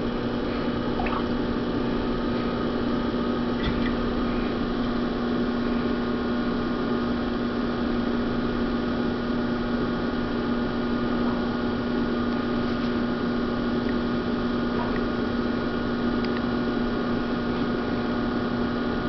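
Electric potter's wheel motor humming steadily at one pitch as the wheel head spins, with faint wet sounds of hands squeezing soft clay while the wall of a cylinder is pulled up.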